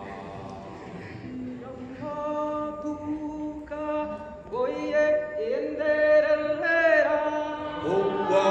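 Two men singing without accompaniment, softly at first, then in long held notes from about two seconds in, sliding up into each new note.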